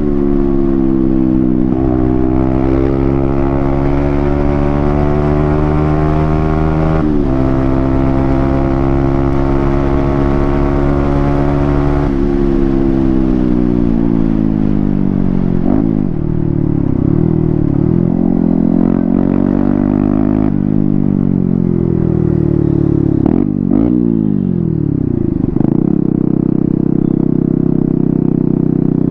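Yamaha MT-15's 155 cc single-cylinder engine running loud with its stock exhaust cut off, while riding. For the first dozen seconds the revs are held fairly steady, with two brief breaks. After that they fall away and climb again several times as the throttle is closed and reopened.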